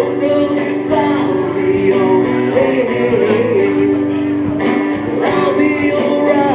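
Live band playing: guitar over bass and a drum kit, with regular drum and cymbal strokes keeping the beat.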